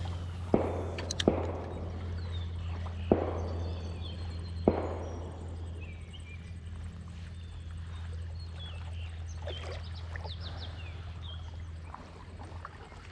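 A steady low hum that stops about twelve seconds in, with four or five sharp knocks in the first five seconds and faint high chirps.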